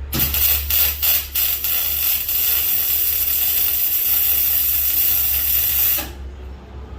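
Gas-shielded MIG welder laying a bead on stainless steel: a few short stuttering starts, then a steady crackling hiss for about four seconds that cuts off sharply.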